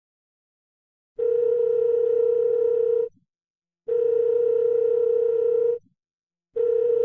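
Telephone ringing tone heard down the line as a call waits to be answered: a steady low electronic tone about two seconds long, repeated three times with short gaps, starting about a second in.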